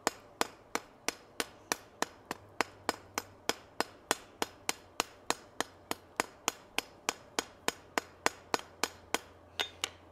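Hand hammer striking a hot steel rivet on a tong joint set over a rivet header on the anvil, in light, even blows about three a second, rounding the rivet head. The blows stop shortly before the end.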